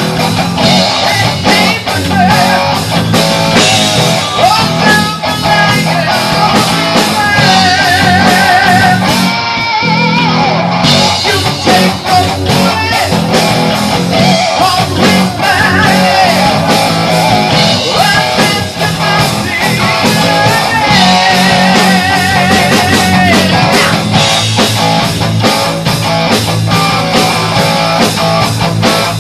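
Heavy rock band playing loudly: distorted electric guitar with bass and drums, and wavering held notes from the lead guitar or voice over them.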